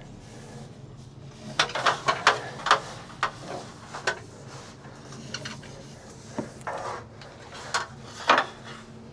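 A run of irregular clacks and knocks with some rubbing, from fiber optic cable being fed by hand into a conduit.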